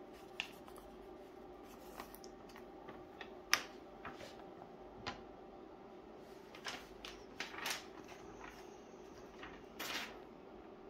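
A faint steady hum with scattered clicks, knocks and rustles, as of things being handled, sharpest about three and a half seconds in and thicker toward the end.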